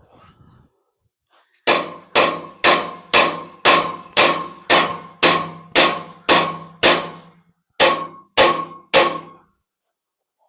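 A hammer striking the top of a hollow metal flag pole, which rings after each blow: about eleven strikes at two a second, a short pause, then three more. The pole's bent, out-of-round end is being beaten back into round cold, without heat.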